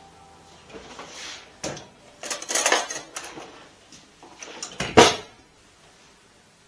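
Kitchen utensils and dishes being handled on a worktop: a few irregular clinks and scrapes, with the loudest knock about five seconds in.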